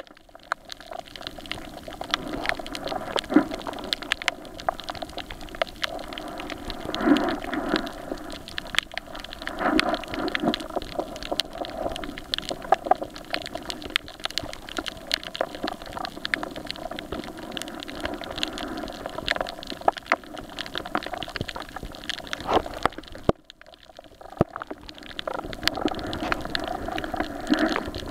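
Underwater sound on a coral reef: a steady muffled water hiss with many scattered sharp clicks and crackles, and a short quieter gap about three quarters of the way through.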